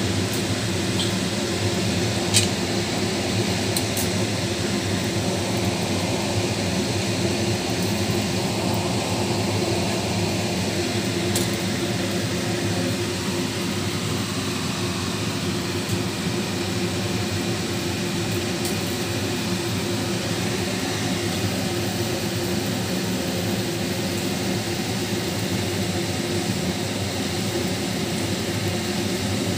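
Steady whirring hum over a rushing hiss, like a kitchen fan running, unchanging throughout, with a few light clicks.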